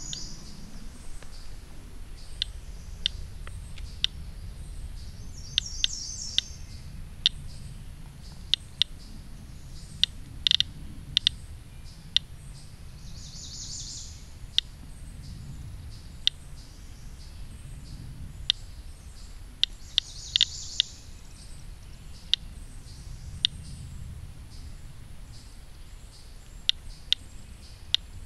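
Radiation Alert Inspector Geiger counter clicking at random intervals, about one click a second. Each click is one detected count, at a rate that fits the low reading of about 0.2 µSv/hr. Birds chirp briefly a few times in the background.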